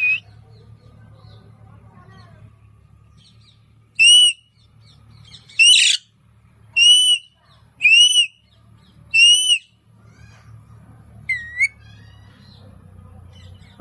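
Pet parrot whistling: a series of short, clear whistles that rise and fall, about five with a second or so between them, one harsher squawk-like call among them, and a quick rising whistle near the end.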